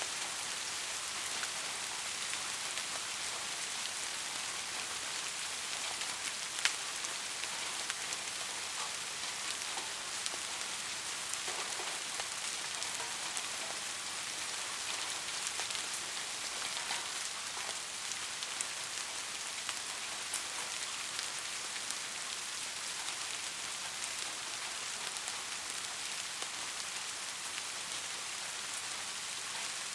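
Steady heavy rain, a hiss of falling water with scattered individual drops ticking, one sharper tick about seven seconds in.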